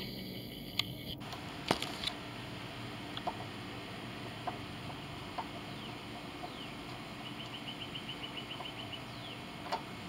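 Scattered light clicks and taps of a socket wrench against the bolt and metal hood-latch parts as the loosened bolt is worked out, over a steady outdoor background. Near the end a bird gives a quick run of about a dozen high chirps.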